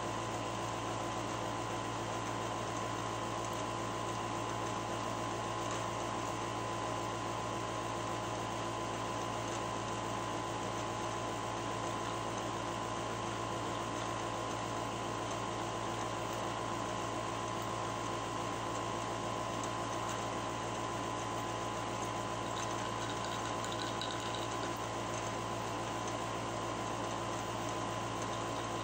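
Steady hum and hiss of a running machine in a small room, with a constant high whine; nothing starts or stops.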